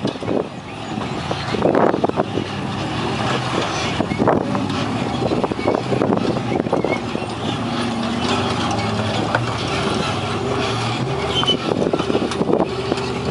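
Off-road race car engines running and revving unevenly as the cars crawl over rocks, the pitch rising and falling, with scattered knocks.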